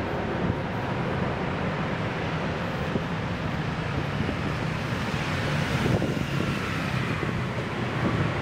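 Steady city road traffic, with one vehicle passing more loudly about six seconds in.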